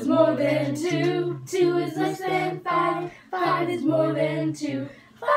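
Several voices singing together without accompaniment, in short held notes phrase after phrase with brief breaks between them.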